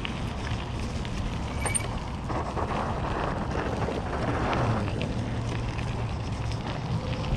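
Wind buffeting the microphone of a camera on a moving e-bike, mixed with tyre noise from the unpaved road. The noise thickens into a rougher rustle for a couple of seconds in the middle.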